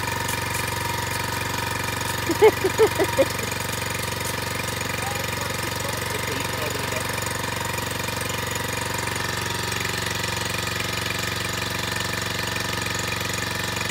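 Predator 1-inch water pump's small four-stroke gasoline engine running steadily while it pumps, with water hissing from the fire-hose nozzle. About two and a half seconds in, a quick run of five short pitched sounds rises briefly above it.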